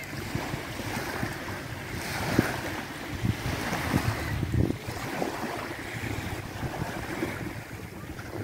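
Small waves lapping and washing onto a sandy shore, with wind buffeting the microphone in gusts.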